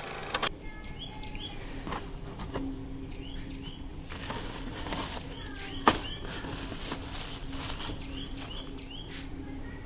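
Plastic bags and cardboard rustling and crinkling as a hand rummages through a parcel, with many small crackles and one sharper crackle about six seconds in.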